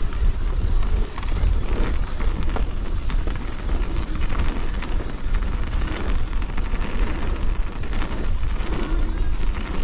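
Wind buffeting and a low rumble on a camera mounted on a downhill mountain bike rolling fast down a dirt trail, with knocks and rattles from the bike over bumps.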